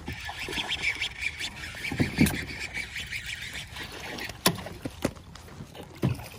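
Handling noise on a plastic fishing kayak while a hooked fish is fought: a steady crackling hiss, a heavy knock about two seconds in and a sharp click about four and a half seconds in.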